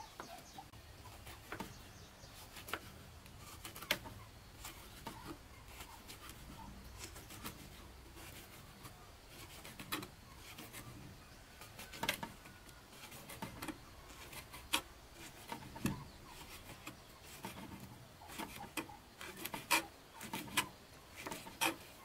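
Kitchen knife slicing cooked sausage on a plastic cutting board: irregular sharp taps and clicks of the blade meeting the board, several a second in places.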